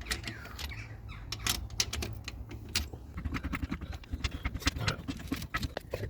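Irregular metallic clicks and clinks of hand tools and parts during work fitting a spare wheel to a car, with a brief quick rattling run around the middle, over a steady low hum.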